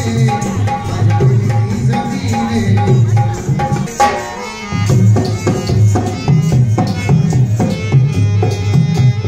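Live Indian folk music led by a hand drum beating a steady rhythm, with a repeated higher note over it; the music breaks off briefly about four seconds in and then comes back in.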